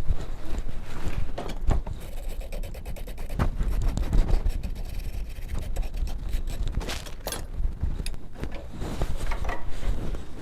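Wire brush scrubbing scale off forged iron in quick back-and-forth strokes.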